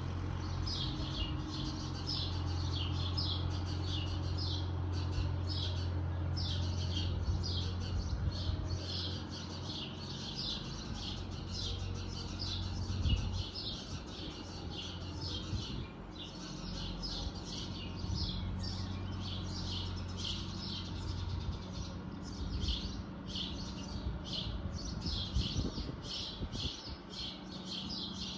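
Birds chirping continuously with short, rapid high calls, over the low steady drone of a distant Fiat 766 DT tractor's diesel engine, which weakens after about ten seconds.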